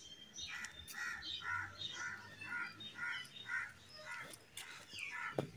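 A crow cawing repeatedly, a run of harsh caws at about two a second.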